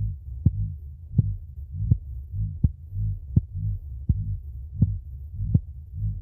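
Heartbeat sound effect: a steady, even pulse of beats, a little under one and a half a second, each with a sharp click over a low thudding throb.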